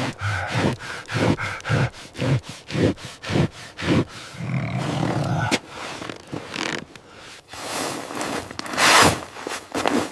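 Footsteps crunching through snow at a walking pace, about two steps a second, with a loud rushing noise near the end.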